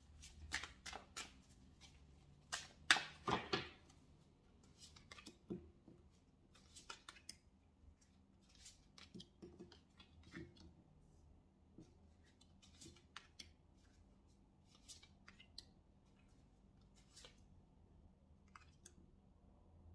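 A tarot deck being handled: a flurry of crisp card snaps from shuffling in the first few seconds, the loudest part, then scattered soft clicks and slides as cards are pulled from the fanned deck and laid on the table.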